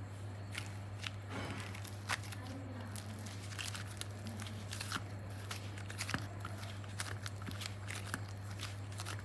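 Soft modelling clay squashed, kneaded and pulled apart by hand, with many small irregular sticky clicks and crackles. A steady low hum runs underneath.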